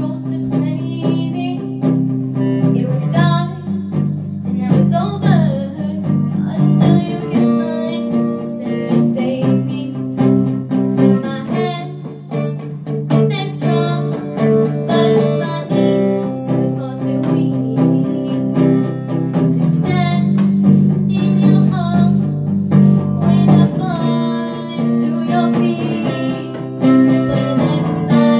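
A girl singing a song into a handheld microphone over a guitar accompaniment, with steady sustained chords under her voice.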